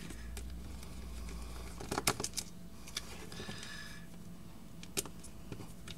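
Small clicks and taps of a precision screwdriver and hands working on the screws inside an open laptop: a quick cluster of sharp clicks about two seconds in and a single click near the end, with faint scratching between.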